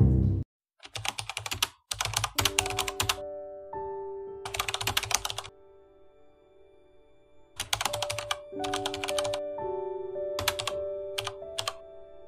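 Computer keyboard typing sound effect in several short bursts of rapid clicks, over soft background music with long held notes.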